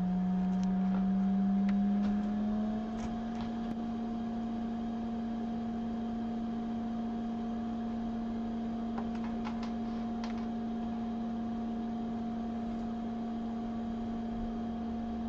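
A steady electrical hum that rises a little in pitch two to three seconds in and then holds, with a few faint clicks from the logic board being handled and a USB-C cable being plugged in.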